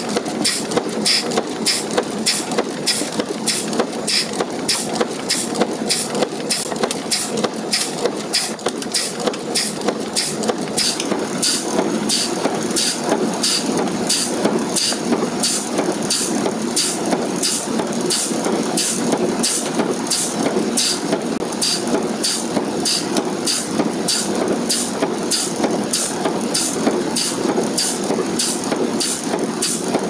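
40-ton power press running a progressive stamping die on brass strip, cycling continuously at roughly three strokes a second: each stroke a sharp clack, with a blast of compressed air that blows the finished terminal out of the die, over the steady hum of the running press.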